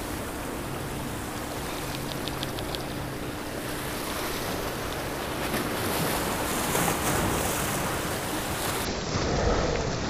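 Sea surf breaking and washing over rock jetty blocks, a steady rushing wash that swells a little midway.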